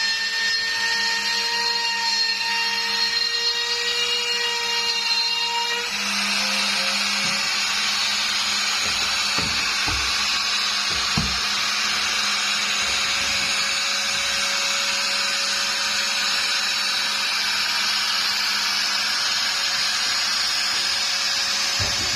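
CNC cutting machine running: a steady motor whine with overtones, which about six seconds in gives way to a steady hissing cutting noise over a fainter whine.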